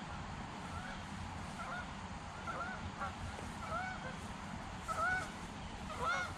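Geese honking: short calls repeated about once a second, with a quicker cluster near the end, over a low steady rumble.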